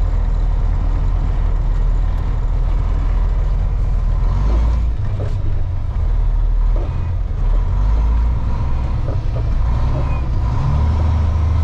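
Semi truck's diesel engine heard from inside the cab while the truck is driven slowly, a steady low drone that steps in pitch several times as the manual gearbox is shifted, with a few light knocks in the middle.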